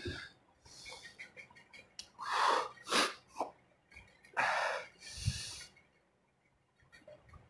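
A man breathing hard through his open mouth, several loud, noisy breaths in a row, from the burning of an extremely hot chili chip.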